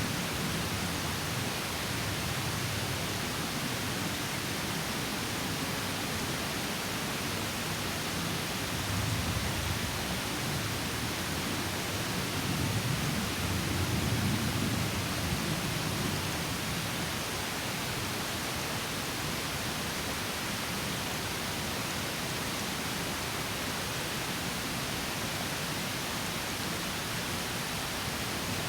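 Water of a small stream spilling over a mini waterfall, rushing steadily. A deeper rumble swells up briefly about a third of the way in and again near the middle.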